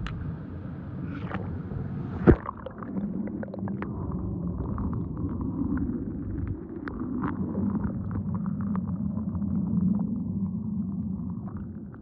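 A single sharp splash about two seconds in as a die-cast toy car goes into a swimming pool, followed by the muffled, low rumble of underwater water movement and bubbles, with scattered small ticks, which fades out near the end.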